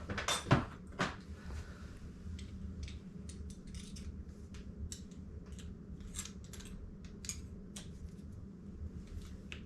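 Small metallic clicks and ticks as the bending tab on a dishwasher's metal mounting clip is worked back and forth to snap it off, a few sharper clicks in the first second and fainter ones after, over a steady low hum.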